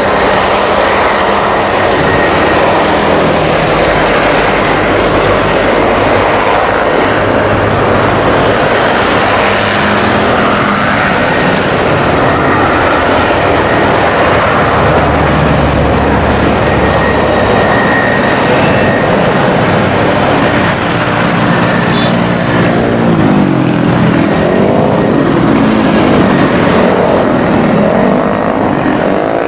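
Twin Garrett TPE331 turboprop engines and propellers of an NC-212-200 Aviocar running loud as the aircraft rolls along the runway: a steady propeller drone with engine tones that waver and shift in pitch through the last third.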